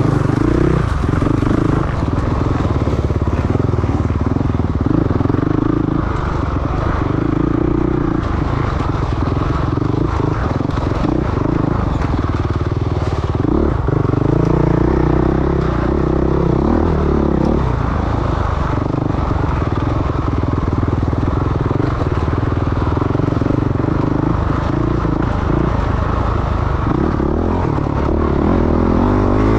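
Off-road dirt bike engine running hard under a rider, its revs rising and falling continuously through gear changes and throttle.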